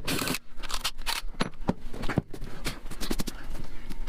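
Irregular clicks, taps and short rustles of objects being handled and set down, about a dozen sharp ticks over a few seconds.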